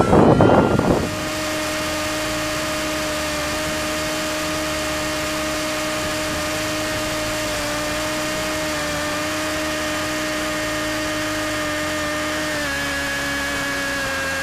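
A Rossi .61 two-stroke glow engine driving the ducted fan of a model P-80 jet, heard from the onboard camera, running at a steady high speed with a constant whine, its pitch dipping slightly near the end. It is preceded by about a second of loud rushing noise from the ground-side microphone.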